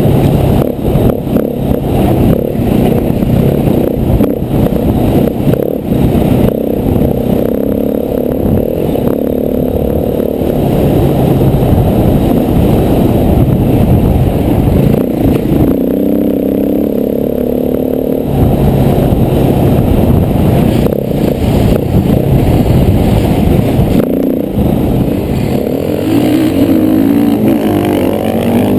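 KTM 450 single-cylinder four-stroke dirt bike engine running under load on a rough trail, its pitch rising and falling as the throttle opens and closes, with a rising rev near the end. Scattered knocks and clatter from the bike over rough ground.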